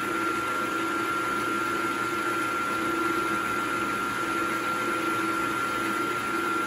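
Benchtop milling machine's spindle motor running steadily, with a constant high whine over a wavering hum, as the end mill is fed down slowly toward the aluminium wheel before it touches and starts cutting.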